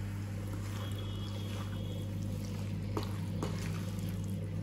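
Wooden spatula stirring chicken livers and masala in a steel kadai, with two short scrapes or knocks against the pan about three seconds in, over a steady low hum.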